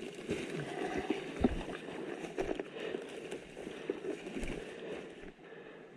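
Footsteps and rustling as a person moves through dense woodland undergrowth, with kit and clothing brushing and irregular small snaps and knocks, one louder knock about a second and a half in.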